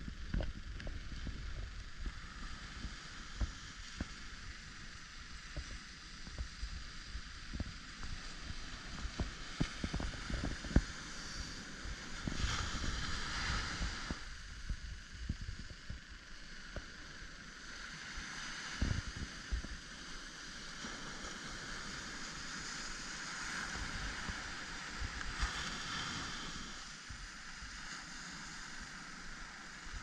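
Surf breaking and washing up a sandy shore, the hiss of the wash swelling twice, with wind buffeting the microphone in frequent low thumps.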